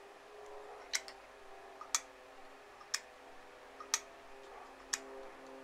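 Relay in a Velbus single-channel relay module clicking about once a second, five sharp clicks, as an interval timer pulses it on and off.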